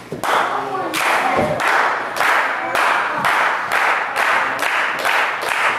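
Wrestling crowd clapping in unison, about two claps a second and quickening, with a few voices shouting early on.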